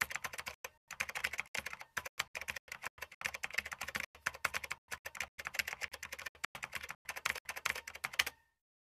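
Computer keyboard typing sound effect: a fast, uneven stream of key clicks with brief pauses, stopping shortly before the end.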